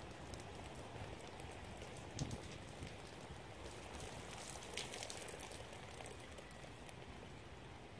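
Light rain falling, an even hiss with scattered drops ticking close by, and a soft low bump about two seconds in.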